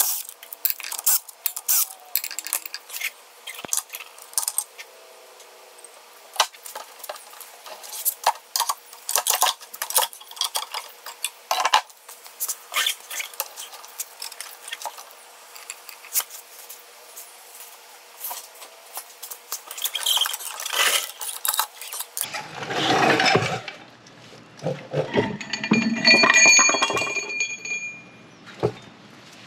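Sharp metallic clinks and knocks as the carrier and ring gear of a Ford 8.8-inch IRS differential are worked loose and lifted out of the cast housing. In the last several seconds the knocking and scraping gets louder and denser, with a brief ringing of metal.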